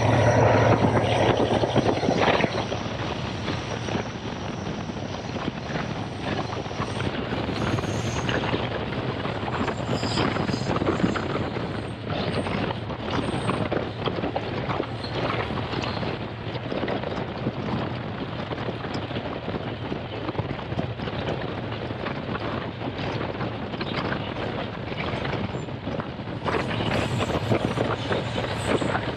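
Passenger train running along the track: a steady rumble of wheels on rails with many short knocks and rattles from the carriage, a little louder in the first two seconds.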